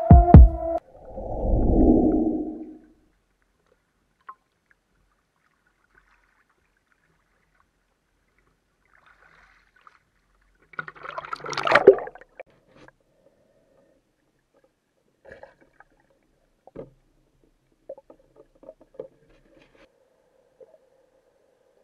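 A person jumping into a lake with a splash. About halfway through, a second, sharper splash and water noise as the diver goes under, then scattered faint underwater clicks and a faint steady hum.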